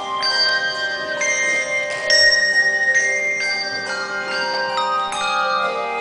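Handbell choir ringing chords of handbells, each chord struck together and left ringing into the next, a new one about every second; the chord about two seconds in is the loudest.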